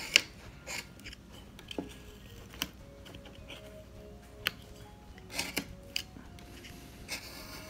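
Carving knife whittling wood, making small V cuts: a series of irregular sharp cuts and scraping rasps as chips are sliced and snapped off.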